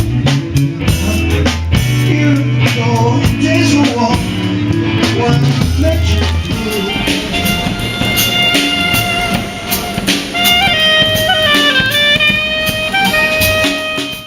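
Background music with a steady drum beat and heavy bass; about halfway through, a held melody line comes in higher up, and the music cuts off near the end.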